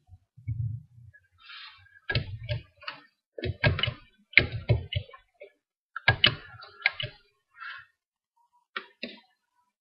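Irregular clicks and knocks in quick clusters, some with a dull low thump, over several seconds.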